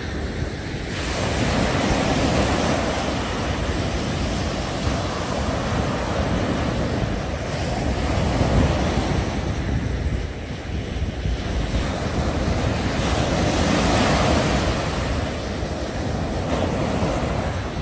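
Small waves breaking and washing up a sandy beach, the surf swelling and easing about every five to six seconds, with wind on the microphone.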